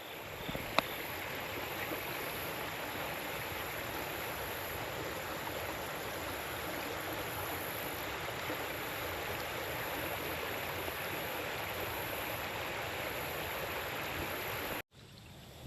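Steady rush of flowing river water, with one faint click about a second in; the sound cuts off suddenly near the end.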